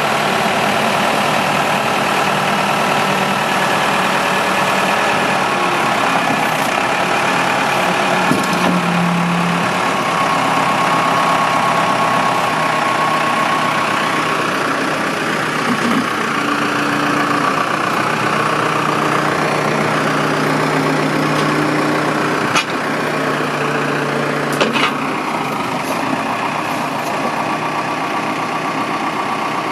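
Diesel engine of a 2002 Case 580M backhoe running steadily, its note shifting a little in pitch from about the middle on. Two short knocks come about two seconds apart near the end.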